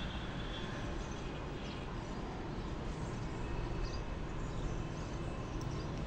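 Steady outdoor background noise with a low rumble, and a faint short high sound about four seconds in.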